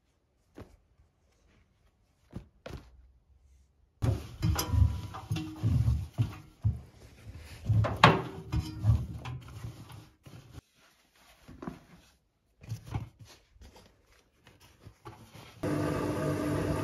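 Laundry being pushed into a front-loading washing machine drum: rustling fabric and irregular thumps against the drum, then a few light clicks. Near the end a steady hum starts up from the washing machine with its door shut.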